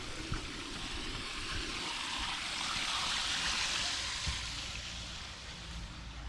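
Running water: a steady rushing hiss that swells around the middle and eases off towards the end.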